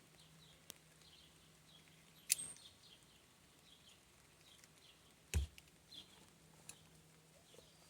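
Faint birds chirping over a low steady hum, broken by a few sharp clicks, the loudest about two seconds in, and a heavier knock about five seconds in.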